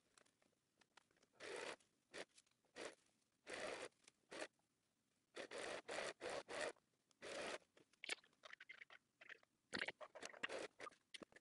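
Irregular short scraping, rustling bursts from muslin fabric being handled and slid across the sewing machine bed under the presser foot, a dozen or so of them.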